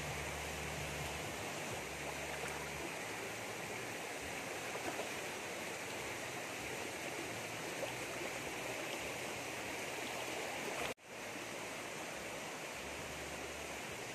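Steady rush of a shallow stream flowing over stones, with a low hum in the first few seconds and again near the end. The sound drops out for an instant about eleven seconds in.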